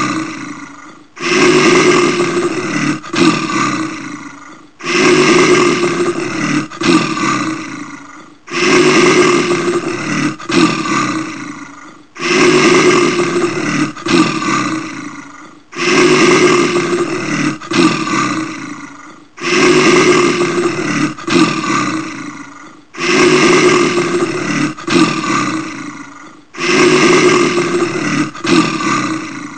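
Brown bear roaring: the same roar repeats about every three and a half seconds, each one starting suddenly, breaking briefly twice, and fading out.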